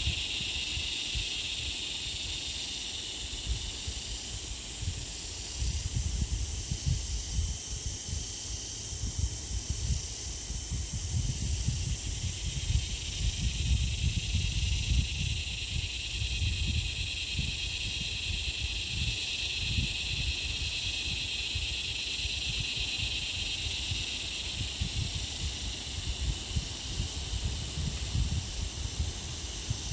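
Bush insects calling: a steady, high insect drone, with a higher chirp pulsing about twice a second. A low, uneven rumble runs underneath.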